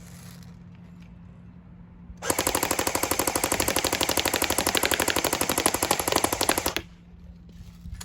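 AK-47-style airsoft gun firing one continuous full-auto burst of rapid, evenly spaced shots. The burst starts about two seconds in and lasts about four and a half seconds.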